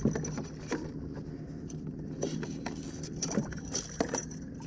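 Scattered light clicks and knocks of gear being handled on a fishing kayak, over a steady low hum.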